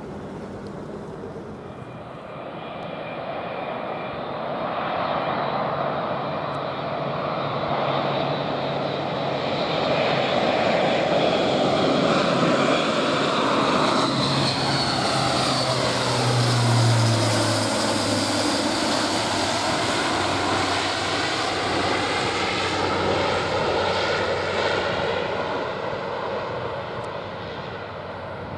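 Airbus A400M Atlas's four TP400 turboprops and eight-bladed propellers drone as the aircraft flies low past on an approach and go-around. The sound swells over the first ten seconds and is loudest around the middle. A low propeller hum drops in pitch as it passes, about 17 s in, then the sound fades as it climbs away.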